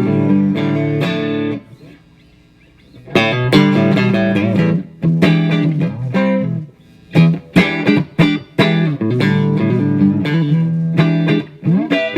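Electric guitar on its neck pickup, a DiMarzio Area 61, played through a restored 1939-40 Gibson EH-185 tube amplifier. It plays ringing chords and short riffs, with a brief pause about two seconds in.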